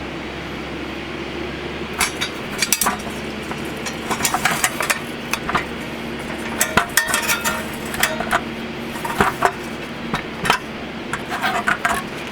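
Metal parts of a mesh fire pit clinking and clattering irregularly as they are handled, starting about two seconds in, over a steady low hum.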